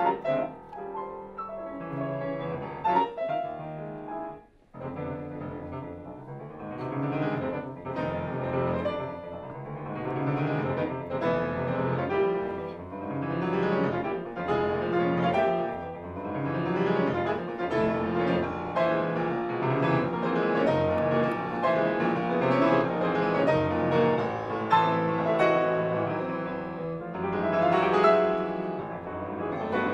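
Solo piano playing a classical piece live, a steady run of many notes, with a brief break about four and a half seconds in.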